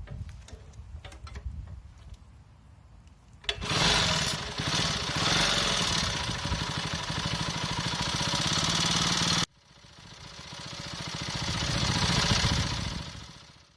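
Moto Morini Corsarino 48cc four-stroke moped engine running with a rapid, even firing beat, starting abruptly a few seconds in. After a sudden cut it comes back, swelling as the moped rides past and then fading away.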